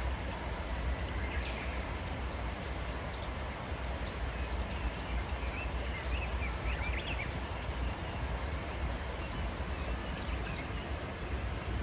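Steady outdoor rushing noise with a few short bird chirps, once about a second in and a small cluster around six to seven seconds in.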